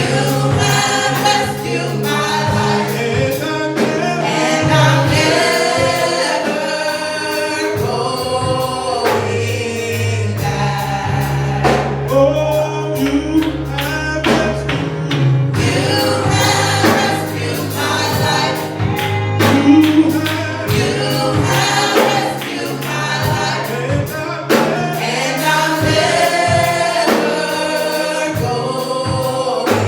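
Gospel choir singing with a live band: held bass notes and a steady drum beat under the voices.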